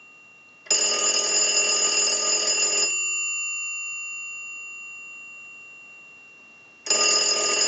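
Northern Electric three-slot payphone's bell ringer ringing on a ring cycle from a test analyzer, as for an incoming call: one burst of about two seconds, a pause of about four seconds, then the next ring starts near the end.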